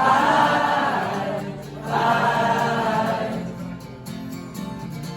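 Live band playing, with two long wordless vocal phrases sung by several voices over the first three seconds or so. The music then drops to softer instrumental playing.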